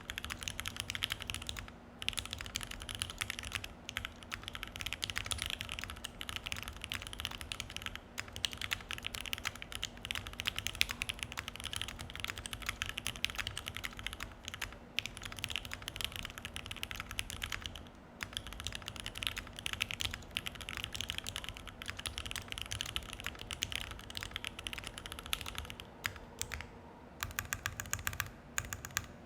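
Continuous fast typing on a Keychron Q1 mechanical keyboard with an FR4 plate, lubed Durock stabilisers and EPBT keycaps, fitted with OP Black switches; rapid clacky keystrokes in runs broken by short pauses. Near the end the typing stops briefly and resumes with a different sound, as the test moves to Akko Jelly Black switches.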